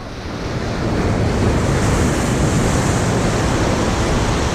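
Surf washing against jetty rocks, swelling over the first second and then a steady rush, with wind buffeting the microphone.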